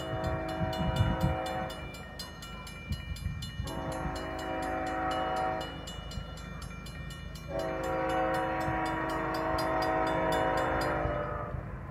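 Nathan K5HLB five-chime air horn on CP locomotive 8706 sounding for a grade crossing: a blast that ends about two seconds in, a second blast of about two seconds, then a longer blast of about three and a half seconds, each a chord of several tones.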